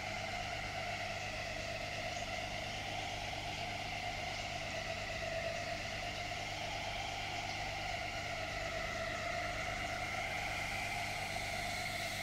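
Steady hum and whir of reef aquarium equipment, with pumps and a powerhead moving water through the tank.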